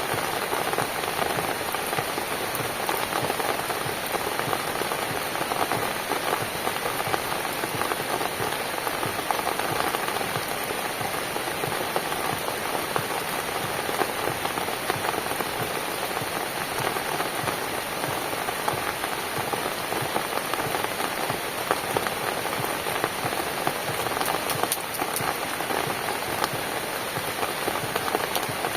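Steady rain falling on a cabin, a dense even patter of many drops.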